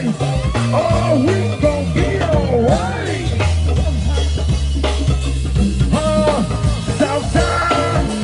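Live go-go band playing: a steady drum and hand-drum groove with bass guitar and keyboard, and a man singing into a microphone over it.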